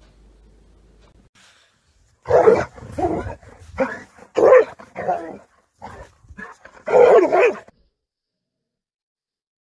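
A dog barking in a quick series of about seven short barks, starting about two seconds in. The last bark is the longest.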